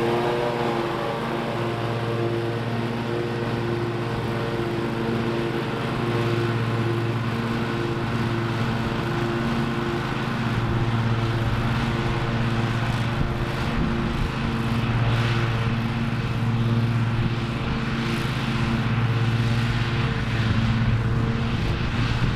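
Toro TimeCutter MyRide zero-turn mower engine running steadily while the mower cuts grass. From about halfway through, gusts of wind noise are mixed in.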